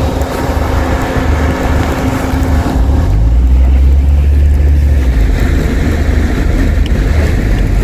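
A car stuck in deep snow, its engine revving and wheels spinning; the engine note climbs and grows louder about three seconds in.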